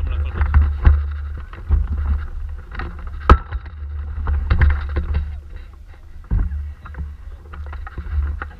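Wind buffeting the microphone of a camera mounted on a hang glider, a heavy low rumble that swells and drops with the gusts, with scattered knocks and clicks and one sharp knock about three seconds in.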